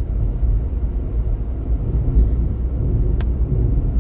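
Steady low rumble of a car's engine and tyres, heard from inside the cabin while driving through a tunnel, with one short click about three seconds in.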